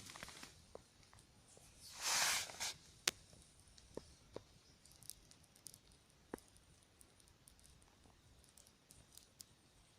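Small campfire of sticks crackling, with scattered sharp pops at irregular intervals. A brief rustling noise comes about two seconds in, the loudest thing heard.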